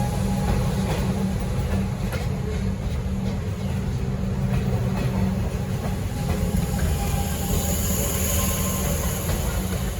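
Metro Comeng electric suburban train running on the track: a steady low rumble with scattered clicks of the wheels over rail joints.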